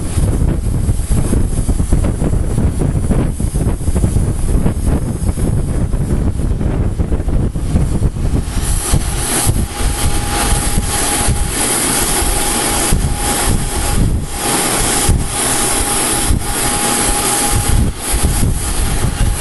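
Oxy-fuel torch flame burning against a steel rod. At first it is a low rumbling hiss; about eight seconds in it becomes a loud, bright hiss with a steady whistle.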